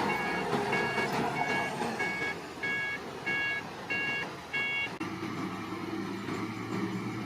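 Heavy machine's reversing alarm beeping evenly, a little under twice a second, over engine noise; the beeping stops about five seconds in, leaving the diesel engine running.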